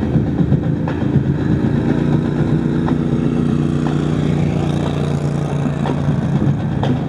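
A vehicle engine running with a steady low drone, with a few faint clicks over it.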